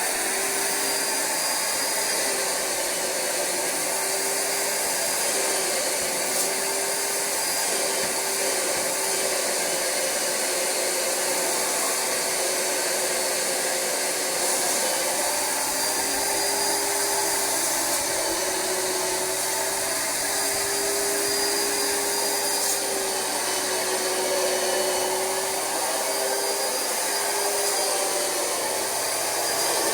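Rug Doctor carpet cleaner running steadily while its Universal Hand Tool extracts cleaning solution from couch upholstery. The vacuum motor gives a steady rushing noise with a held whine that wavers slightly in pitch.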